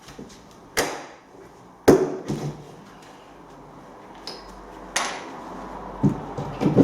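Hammer striking old floorboard nails to get them out of the timber: about five sharp, irregularly spaced knocks, a couple with a brief metallic ring.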